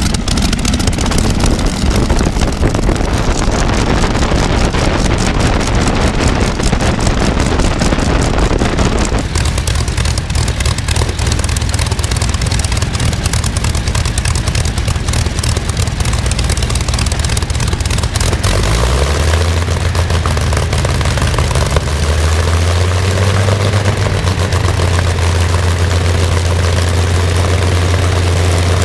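Rolls-Royce Griffon 58 V12 aero engine running on a trailer-mounted test stand, propeller turning. About two-thirds of the way through, its low note rises and then holds steady.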